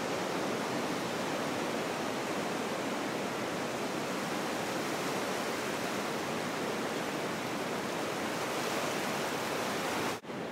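Ocean surf washing in around a stranded dock on a sandy beach: a steady rush of small breaking waves, with a brief dropout near the end.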